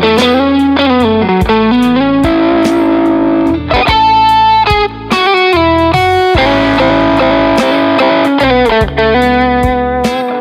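Fender Custom Shop 1961 Stratocaster electric guitar playing lead lines over a backing track with drums and bass. The lines include string bends and a held note around the middle.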